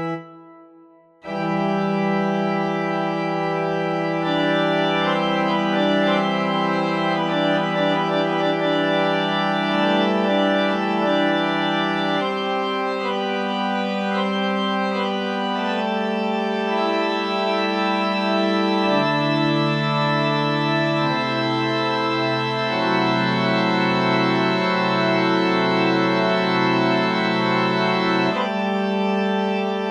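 Organ music: slow, sustained chords over held bass notes, the harmony shifting every few seconds. It begins after a near-silent gap of about a second.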